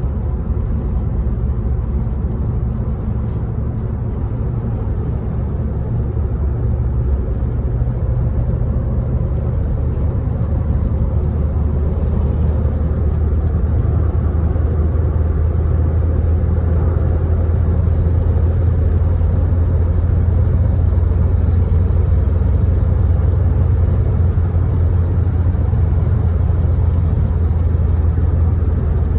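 Car driving along a road: a steady, deep engine and tyre rumble that grows a little louder about halfway through.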